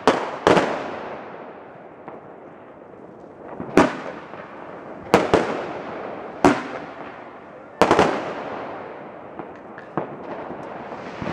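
Fireworks bursting overhead: a series of about six sharp bangs, each followed by a fading rumble and crackle. Most come at intervals of about a second and a half, and a weaker one comes near the end.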